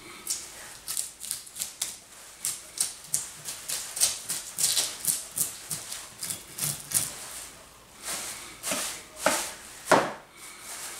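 Knife blade scraping the scales off a striped bass, a rhythmic series of rasping strokes two or three a second. There is a louder rustle of plastic sheeting near the end.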